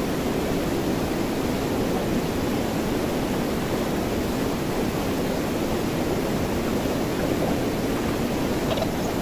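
Whitewater rapids of a rocky river rushing over boulders: a steady, even rush of water.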